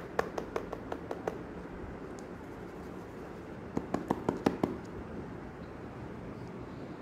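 Fingers handling thin plastic cups of frozen fruit purée, making two quick runs of sharp clicks and taps, one just after the start and one about four seconds in, over a steady hiss.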